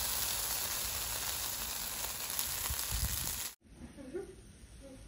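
Coconut-rice batter sizzling in the cups of a cast-iron khanom krok pan, a steady frying hiss that cuts off suddenly about three and a half seconds in, leaving a much quieter background.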